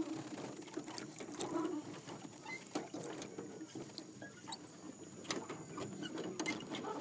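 Wooden oars working in the metal oarlocks of a small rowboat: irregular clicks and knocks as the oars shift in their swivels.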